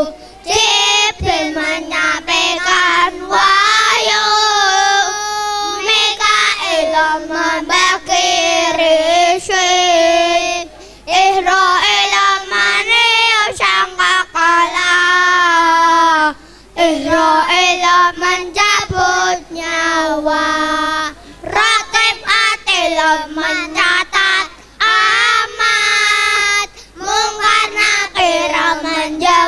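Young children, a group of kindergarten boys, singing together into microphones, in sung phrases separated by short breaks for breath.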